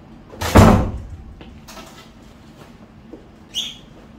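A door, most like a cabinet door, shutting with a single thump about half a second in, followed near the end by a short, fainter high-pitched clink.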